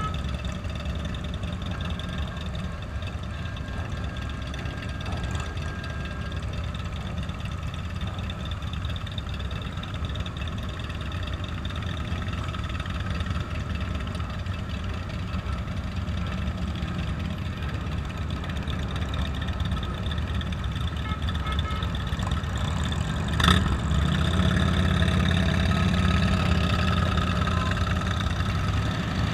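Motorcycle engines running steadily, the rider's 2015 Triumph Bonneville T100 air-cooled parallel twin among many other motorcycles. A single sharp knock comes about 23 seconds in, and the engine noise is louder after it.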